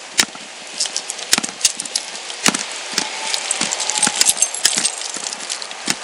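Keys and small metal objects jingling, with sharp clicks and knocks at uneven intervals.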